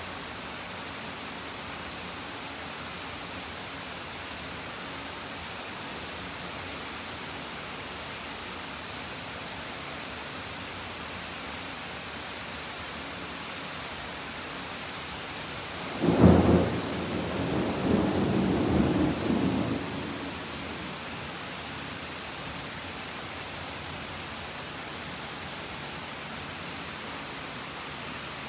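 Steady hiss of rain. About sixteen seconds in comes a sudden clap of thunder, which rumbles on for about four seconds and fades.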